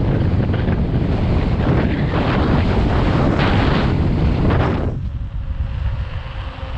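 Wind rushing and buffeting on a GoPro Hero7 Black's microphone during a fast mountain bike ride, mixed with clatter from the bike over rough ground. About five seconds in, the rushing drops sharply and leaves a low rumble.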